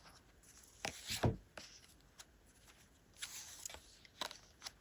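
Tarot cards being drawn and laid on a table: a few short soft taps and card rustles.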